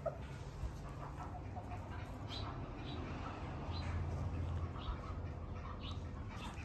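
Barred Pekin bantam chickens making soft, scattered clucks and short chirps over a steady low background hum.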